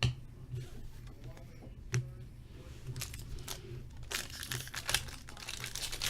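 Foil trading-card pack wrapper crinkling as it is torn open, with a couple of sharp clicks in the first two seconds and the crinkling growing denser about four seconds in.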